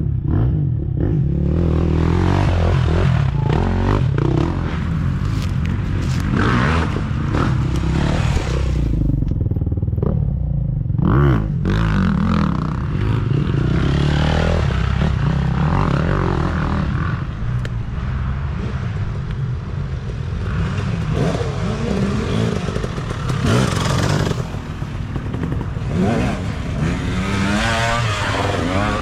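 Off-road dirt bikes racing past one after another on a loose dirt trail, engines revving up and down with each pass. Tyres scrape and throw dirt.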